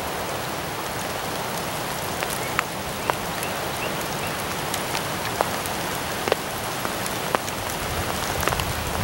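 Steady rain falling, a constant hiss with individual drops ticking sharply close by every second or so.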